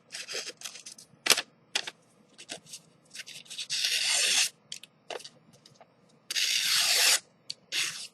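Sharp folding-knife blade slicing strips off a paper sticky note: short scraping cuts with a couple of sharp clicks, then two longer strokes of about a second each, the second near the end.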